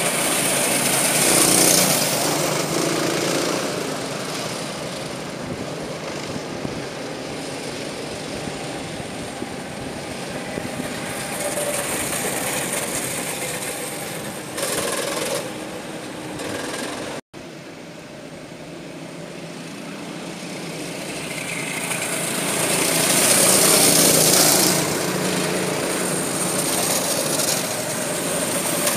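Small engines of several racing karts buzzing as they pass along the track, swelling and fading as each group goes by. About two-thirds through, the sound cuts out for an instant and comes back quieter before building again.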